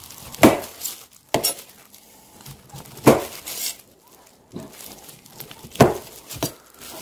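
Knife slicing crosswise through peeled tangerines and knocking on the cutting board, about five sharp chops at uneven intervals.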